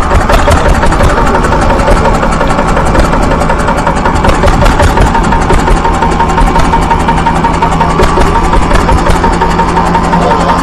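Handmade miniature diesel engine running steadily with a rapid, even beat.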